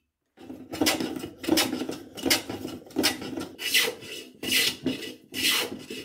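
Metal bench hand plane shaving a block of spalted maple, taking about seven strokes at a steady pace from about half a second in, each pass a rasping hiss of the blade cutting through the wood.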